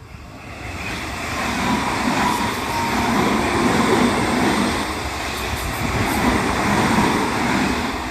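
Odakyu electric train passing close by: the running noise builds over the first couple of seconds, holds loud, then begins to fade near the end.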